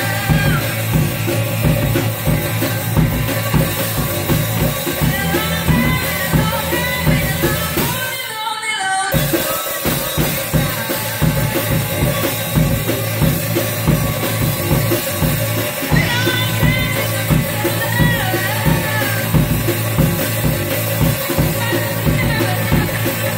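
Live rock band playing: a girl sings lead into a microphone over electric guitar and a Pearl drum kit beaten steadily through the song. The singing comes in phrases, with the drums and guitar carrying on between them.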